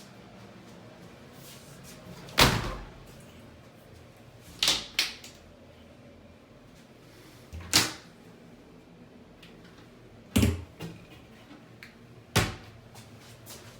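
A series of sharp clunks of doors being opened and shut, about six in all, two in quick succession about five seconds in.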